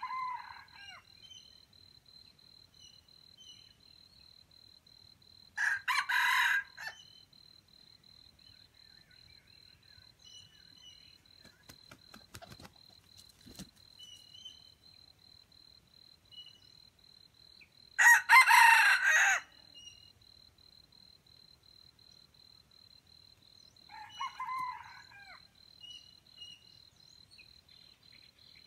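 Junglefowl roosters crowing, short cock-a-doodle-doo crows about a second long. Two loud, close crows come about 6 s and 18 s in, with fainter, farther ones at the start and about 24 s in. A steady high-pitched insect whine sounds underneath.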